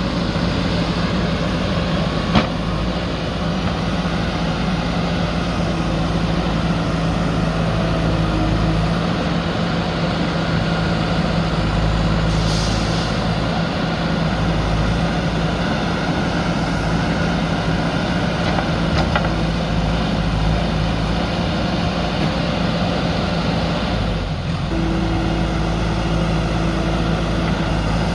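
Diesel engine of a JCB backhoe loader running steadily. There is one sharp knock about two seconds in and a short hiss near the middle.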